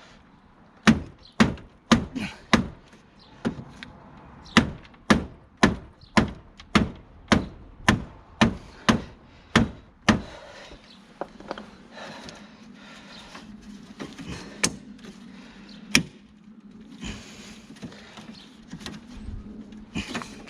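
About twenty sharp knocks, roughly two a second, as bent front-end metal around the BMW E36's kidney grilles is bashed back into shape. The knocking stops about halfway through, with a steady low hum after it and one more knock later on.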